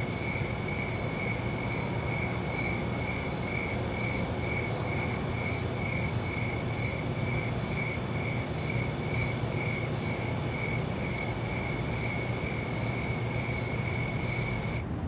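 Night ambience: a cricket chirping in an even rhythm, about one and a half chirps a second, over a steady low hum. The chirping cuts off suddenly near the end while the hum carries on.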